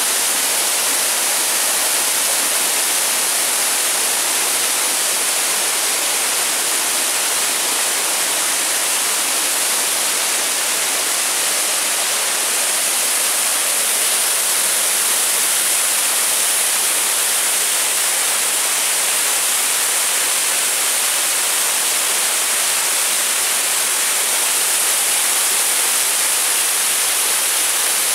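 Waterfall cascading down rock ledges: a loud, steady rush of falling water.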